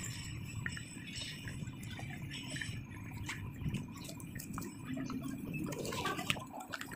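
City street background: a steady low rumble with scattered light clicks and ticks.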